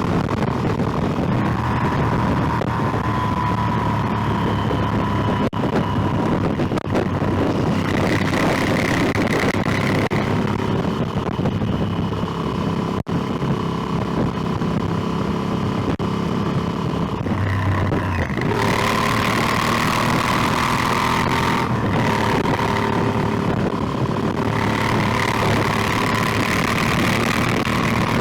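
Motorcycle engine running at road speed under wind noise, its note shifting and growing brighter about two-thirds of the way in.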